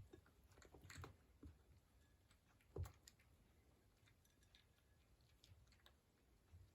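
Faint, scattered light taps and clicks of a kitten playing with a toy on its own, the loudest knock about three seconds in.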